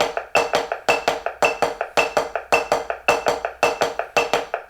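Drumsticks striking a 12-inch rubber practice pad with the right hand in skip strokes (two strokes per motion in a triplet feel), with a metronome marking each beat at 110 bpm with a short high beep about every half second.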